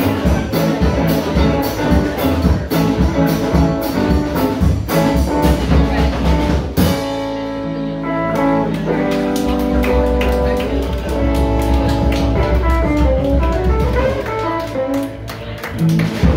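Live band with electric guitars and a drum kit playing to a steady beat; about seven seconds in the drums stop and the guitars ring out with held notes and runs, with a last hit near the end as the song finishes.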